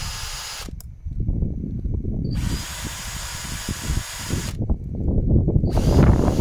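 Makita cordless drill spinning a round file against a chainsaw chain's cutter teeth to sharpen them, with a rasping grind of file on steel. The drill runs in short bursts: it stops just under a second in, starts again about two seconds in, and starts once more near the end, each time with a brief rising whine.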